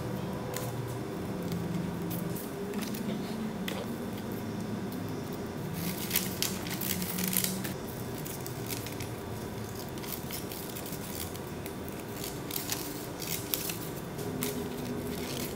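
Scissors snipping through paper and brown paper-bag paper in a run of short, sharp cuts, thickest about six to seven and a half seconds in and again near the end.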